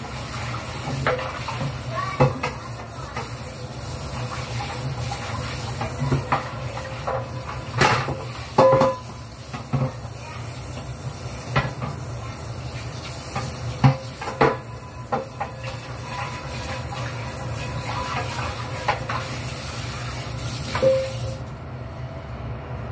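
Dishes being washed by hand at a kitchen sink: tap water running steadily, with scattered clinks and knocks of plates and pans, a few of them ringing metal clanks. The running water stops shortly before the end.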